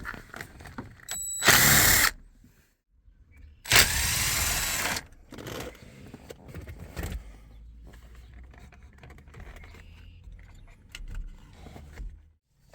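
A socket tool backing out the 8 mm bolts that hold the steering-wheel airbag. There are two short loud bursts, one about a second and a half in and a longer one about four seconds in, followed by faint scattered clicks.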